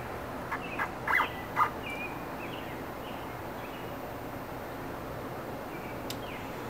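A small stepper-driven lathe slide being jogged into position: a few sharp clicks in the first two seconds and short, high chirping tones now and then, over a steady low hum.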